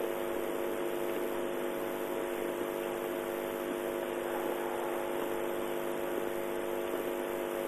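Steady hum of several fixed tones over a constant hiss.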